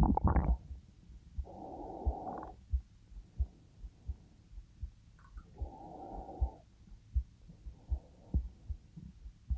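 A person's heartbeat heard close up, a low thump about every two-thirds of a second, with two slow breaths, about a second and a half in and again near six seconds. A short louder rustle right at the start.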